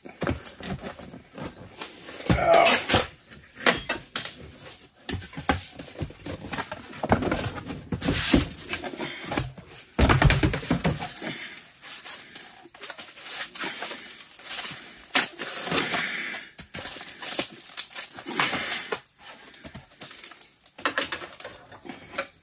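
Cardboard box and foam packing sheet being handled as a car stereo head unit is unpacked: irregular rustling and crinkling with scattered knocks, loudest twice, a few seconds in and about halfway through.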